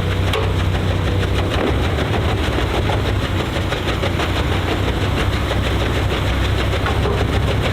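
Snow-blower truck's engine running steadily under throttle, a continuous low rumble with a fast even pulse.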